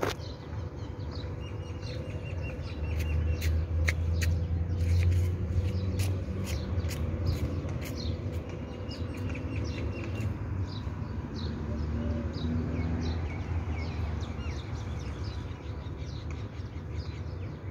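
Small birds chirping in quick, high twitters, over a low rumble that swells a few seconds in.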